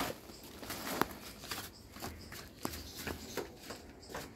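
Shuffling footsteps on gritty concrete and the rustle of a woven plastic cement sack being handled, with several sharp clicks scattered through it.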